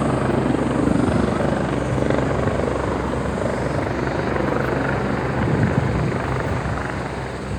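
An engine running steadily, a low even drone with a choppy, throbbing edge, easing off slightly near the end.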